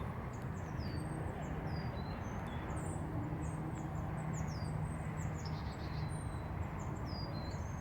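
Many small birds chirping at once, a busy overlap of short, high notes that slide downward, over a steady low rumble.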